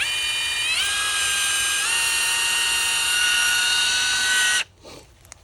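Bauer 20V brushless 3/8-inch cordless impact wrench running free with no load: a high motor whine that steps up in pitch twice as the trigger is squeezed further, holds steady, then cuts off suddenly near the end.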